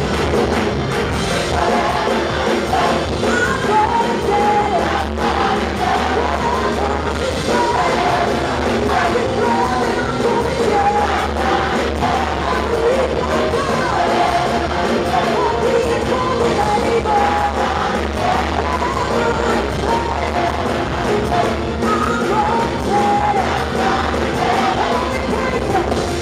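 Mass gospel choir singing an upbeat song in full voice, with hand clapping among the singers.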